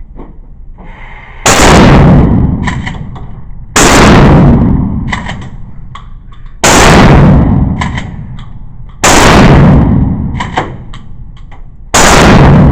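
Five loud gunshots from a firearm, spaced about two and a half to three seconds apart, each ringing out as it dies away, with a few light metallic clicks shortly after each shot.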